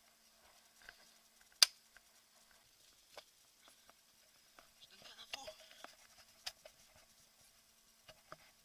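Faint rustling and handling noises broken by a few sharp cracks, the loudest one about one and a half seconds in, with smaller clicks about three seconds in and again near six and a half seconds.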